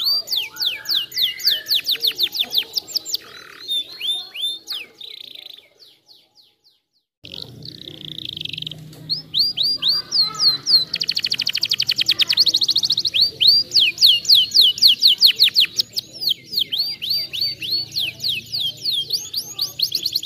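Domestic canary singing: fast rolling trills of repeated falling notes, breaking off for about a second and a half partway through, then resuming with a rapid buzzing trill and more rolls.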